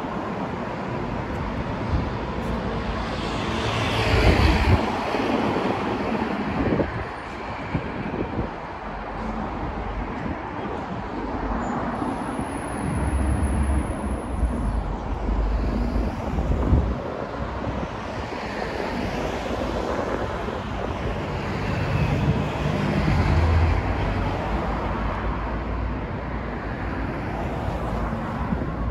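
City street traffic: cars and buses passing on a busy road, swelling and fading as they go by, with wind buffeting the microphone at times.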